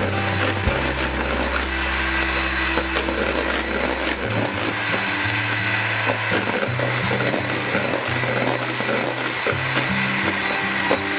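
Background music with a low bass line that steps from note to note.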